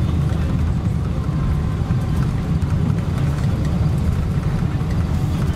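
Steady low rumble inside the cabin of a Boeing 777-200ER during its landing rollout on the runway, the noise of the aircraft's engines and wheels heard through the fuselage with no change in level.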